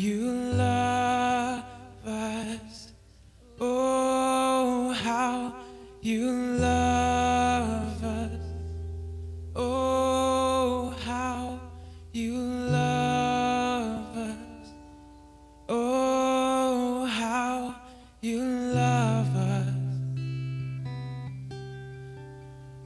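A man singing a slow worship song in long held phrases with short breaks between them, over acoustic guitar and low sustained notes underneath.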